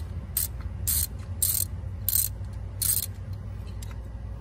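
Socket ratchet clicking in about five short back strokes, roughly two-thirds of a second apart, then stopping: a spark plug being backed out slowly on extensions.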